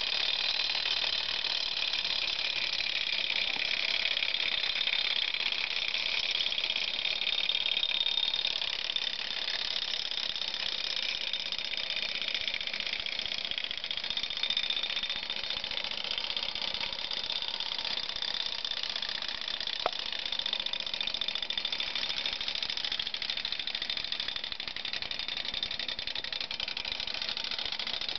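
Wind-up clockwork mechanism of a kinetic sculpture running steadily, a continuous mechanical whirr and rattle of gears and rods, with a single click about twenty seconds in.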